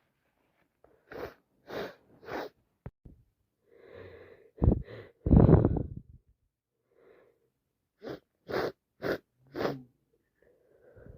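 A woman with a heavy head cold and a runny nose sniffing three times in quick succession, then drawing a breath and sneezing loudly about five seconds in, followed by four more quick sniffs.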